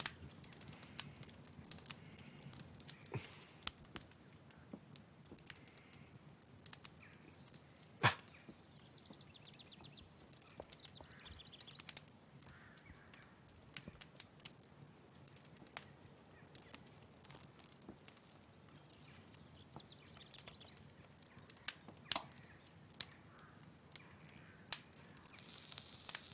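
Quiet room with scattered small clicks and knocks of vinyl record sleeves being handled and flipped through in a crate; the sharpest knock comes about eight seconds in. Faint high chirping sounds in the background.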